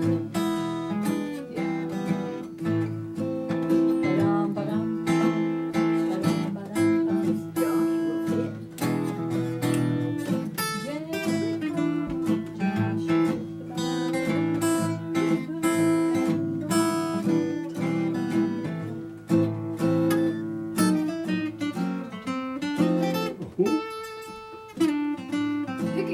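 Two acoustic guitars, a flat-top and an archtop, playing a picked and strummed country tune together. Near the end the playing slips.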